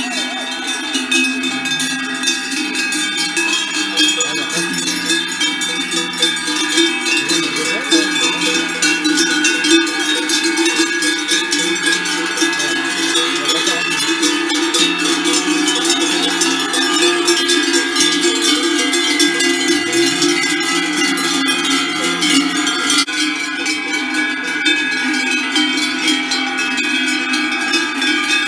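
Many large cowbells hung on the necks of a herd of cows clanging together as the cattle walk past, a continuous dense jangle of bells at many different pitches.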